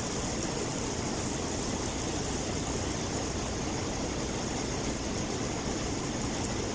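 Diesel truck engine idling steadily, a constant low rumble with no change in speed.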